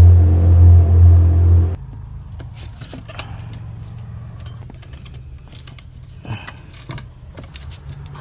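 A loud, steady motor-vehicle engine close by, which stops abruptly a little under two seconds in. A quieter, steady low engine rumble follows, with scattered light clicks and knocks.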